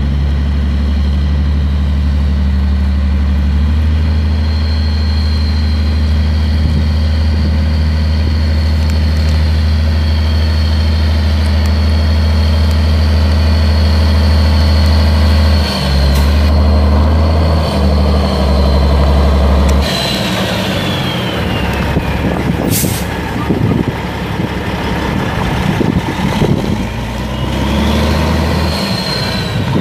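Caterpillar C15 Acert turbo diesel in a 2008 Peterbilt 388 semi truck, running with a steady low drone and a high whine over it. About two-thirds through the sound turns rougher and more uneven, and a short hiss of released air follows soon after.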